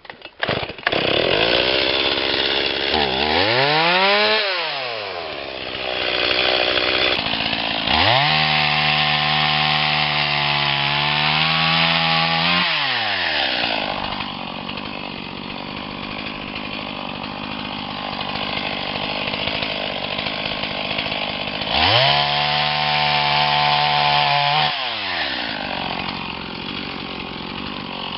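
Stihl MS 180 two-stroke chainsaw idling and revved up three times, dropping back to idle in between. There is a short rev about four seconds in, a long full-throttle run from about eight to twelve seconds whose pitch sags a little as under load cutting a branch, and another rev about twenty-two seconds in.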